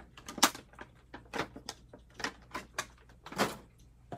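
Plastic clicks and taps as HeroClix miniature figures and their clear plastic tray are handled: about a dozen irregular clicks, the loudest about half a second in.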